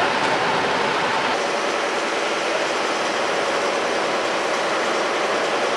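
A machine running steadily close by: a loud, even noise with faint steady tones in it and no change in speed.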